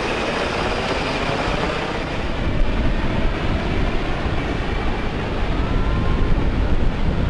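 Military helicopter flying overhead and moving away, its rotor and engine noise steady and gradually losing its high end, with wind buffeting the microphone.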